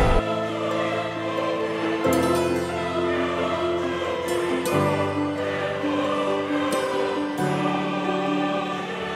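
Slow background music with a choir-like sound: sustained chords that change about every two and a half seconds.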